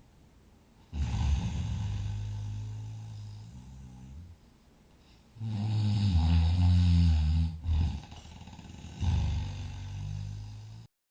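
A sleeping person snoring: three long, buzzing snores with quiet breaths between them. The middle snore is the loudest. The sound cuts off suddenly near the end.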